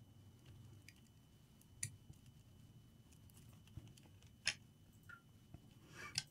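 Near silence with a few faint clicks and taps, the loudest about four and a half seconds in, as a laptop display cable connector is handled and pushed into its socket on the motherboard.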